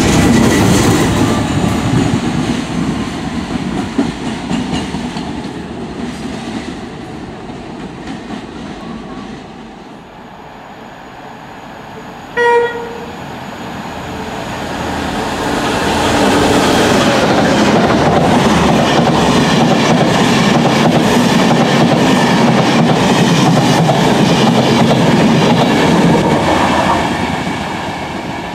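IE 201 Class diesel locomotive 207 passing close by, its sound dying away over the first ten seconds or so. About twelve seconds in, a short horn blast comes from an approaching Enterprise train, which then passes loudly for about ten seconds before fading.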